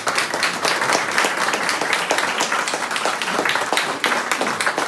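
A small gathering of people applauding, many hands clapping together.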